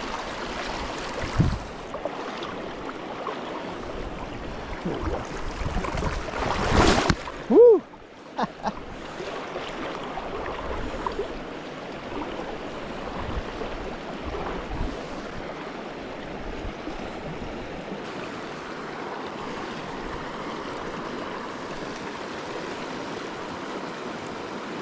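Creek water running steadily. There are two louder sudden noises in the first eight seconds. About eight seconds in comes a brief voiced sound.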